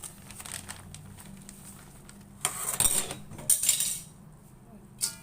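Kitchen utensils and dishes clattering in two bursts about a second apart, then a single sharp clink near the end.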